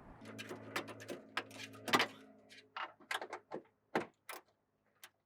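A series of sharp clicks and knocks from plastic trim parts being handled as a retaining clip is released from the inside of the liftgate, over a low steady hum that fades out about halfway.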